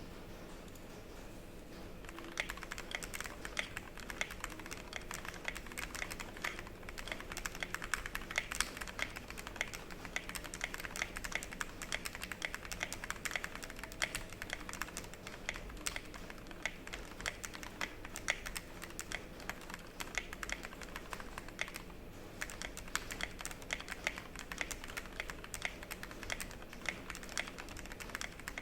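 Fast, uneven typing on a Tofu65 mechanical keyboard with lubed linear switches (Gateron Yellow stems and springs in retooled Cherry black housings), a polycarbonate plate and DROP MT3 ABS keycaps. The key clacks start about two seconds in and run on, with a brief lull about three quarters of the way through.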